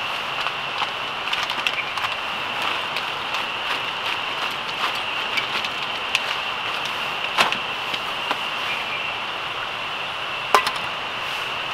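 A steady, high, unbroken chorus of night insects, with scattered small clicks and clinks from camp cookware, a spoon and a food packet being handled. Two sharper knocks stand out, about seven and ten and a half seconds in.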